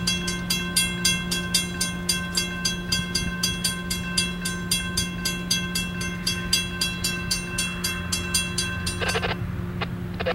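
Railroad grade-crossing bell ringing rapidly, about four to five strikes a second, while the crossing gates rise after a train has passed. It stops about nine seconds in, leaving a steady low hum.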